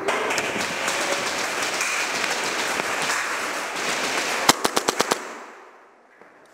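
Airsoft gunfire: a dense, continuous clatter of shots and impacts, then a rapid burst of about six sharp cracks about four and a half seconds in, after which it goes quiet.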